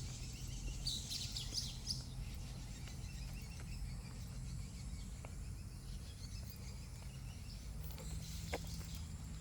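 Small birds chirping in short high bursts, about a second in and again near the end, over a steady low background rumble.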